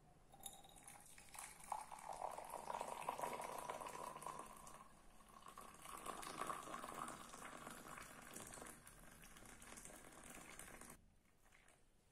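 Liquid poured in a thin stream from a jug into a ribbed glass, splashing steadily as the glass fills; the pouring stops about a second before the end.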